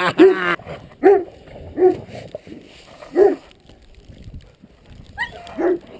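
Dogs barking in short single barks while play-fighting, about six in all, with a quiet gap near the middle.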